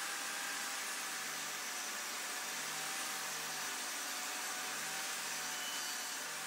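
Table saw running steadily while ripping a board of OSB.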